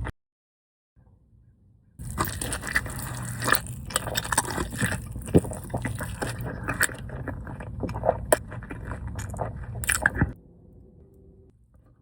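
Close-up eating of a burger: biting and chewing with crunching and wet clicking. It starts after about two seconds of silence and stops abruptly about ten seconds in.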